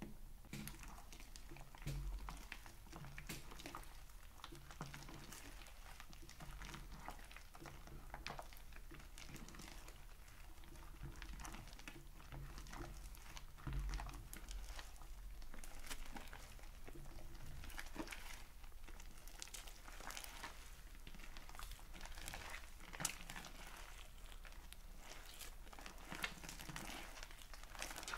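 Hands squishing, kneading and stretching fluffy slime mixed with small foam beads: a continuous irregular sticky crackling and popping, with a couple of soft thuds as the hands push into the mass.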